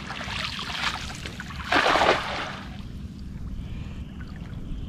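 A short burst of splashing water about two seconds in, over a steady low rush of background noise.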